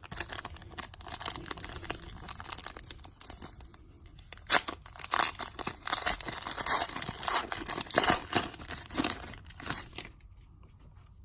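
Foil wrapper of a trading-card pack being torn open and crinkled by hand, a dense crackling with sharp snaps that stops a little over a second before the end.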